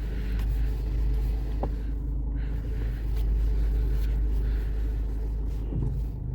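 Toyota Corolla 1.4-litre petrol engine idling steadily with the car held stationary on the brake, heard from inside the cabin as a low hum. There is one faint short tick about a second and a half in.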